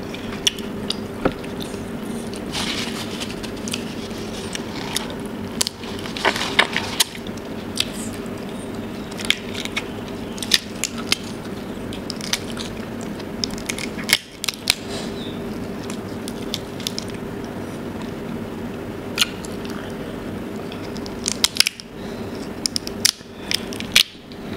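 Cooked giant tiger prawns being cracked and peeled apart by hand close to the microphone: scattered sharp crackles and clicks of shell with wet squishing, over a steady low hum.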